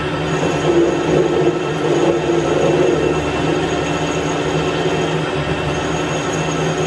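Metal lathe running while a tool turns a steel shaft: a steady drone of motor and gearing with a constant high whine. The cutting noise is louder for a couple of seconds starting about a second in.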